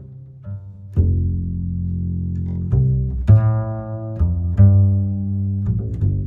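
Background music: a low, bass-heavy line of held notes that change every second or so.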